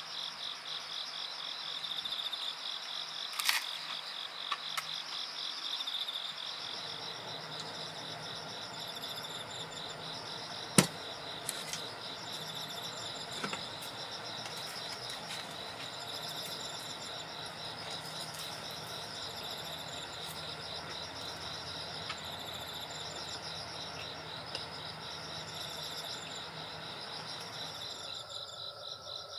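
Insects chirring steadily in a rapid pulsing trill, with a few sharp clicks, the loudest about eleven seconds in. A low steady hum joins at about six seconds.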